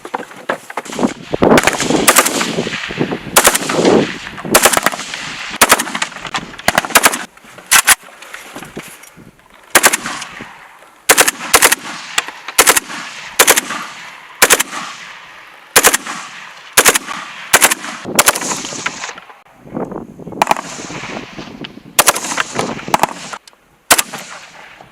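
AK-12 assault rifle firing a long series of shots, mostly in quick pairs and short bursts about a second apart, each crack followed by a ringing echo, with a brief pause near the end.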